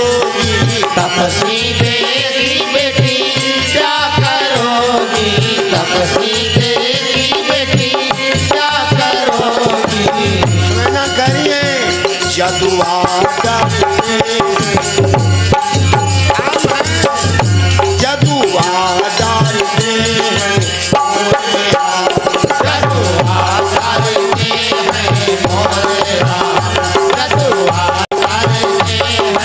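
A devotional Hindi bhajan sung live by a man, with drums and other percussion keeping a steady beat.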